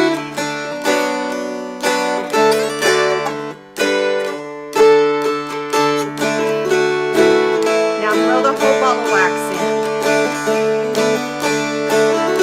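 Two mountain dulcimers strummed together in a duet: a lively melody over a steady low drone, with a brief drop in the playing a little before four seconds.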